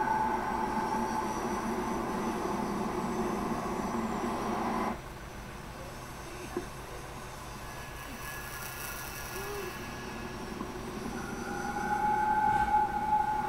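Film soundtrack from a television: a steady drone with held high tones, which drops away suddenly about five seconds in and builds back near the end.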